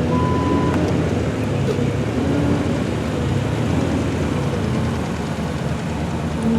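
Engines of an off-road tow truck and a Jeep running under load as the Jeep pulls the stuck wrecker up a sandy hill: a steady, heavy low rumble whose pitch wanders. A short high beep sounds in the first second.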